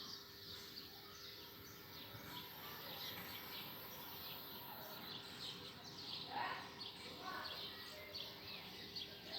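Faint birdsong over a quiet background hush: many short, high chirps from small birds, with a few lower rising calls about six and seven seconds in.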